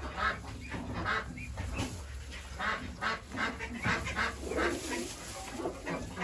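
Farm poultry calling: a run of short, repeated calls, about two a second.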